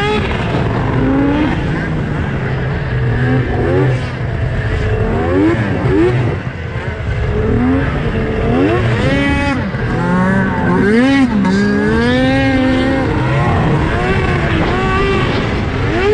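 Two-stroke triple snowmobile engine, heard from on board, revving hard as the sled is ridden across snow: the pitch climbs and drops again and again, with quick repeated revs in the middle.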